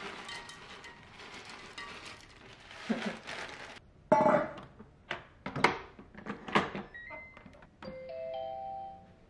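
Knocks and clunks around a rice cooker pot, then a Cuckoo pressure rice cooker's buttons beep and its electronic chime plays near the end as it is set to cook.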